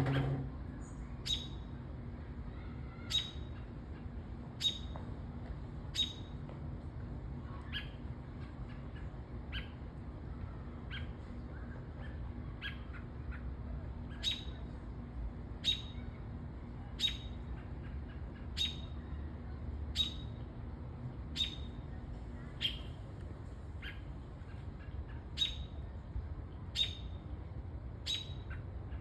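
A small bird giving short, sharp chirps, one about every second and a half, over a steady low background hum.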